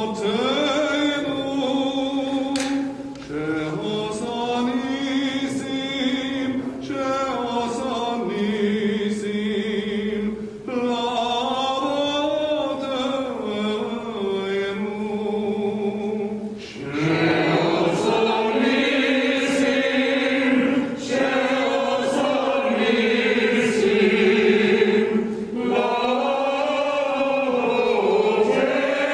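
Small mixed choir of men's and women's voices singing together in harmony, in long held phrases with short breaks between them, growing louder and fuller from about halfway through.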